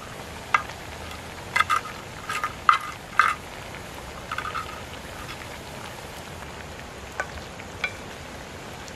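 Wooden spoon clacking and scraping against a clay dish and a metal cooking pot as pieces of fried fish are moved into curry and stirred, a dozen or so sharp knocks, most of them in the first three seconds and two more near the end. Under them runs a steady hiss of the curry simmering over a wood fire.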